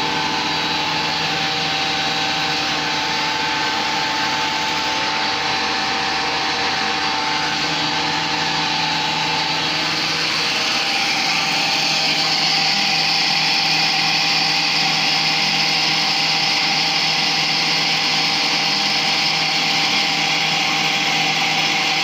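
Electric motor belt-driving a grain grinding mill, running steadily with a constant whine and mechanical hiss. About ten seconds in the sound grows harsher and a little louder.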